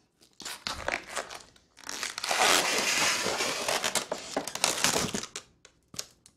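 A balloon being blown up by mouth while coiled around the fingers: a few short puffs, then a long stretch of dense rubbing and crinkling as the coils fill, dying away near the end.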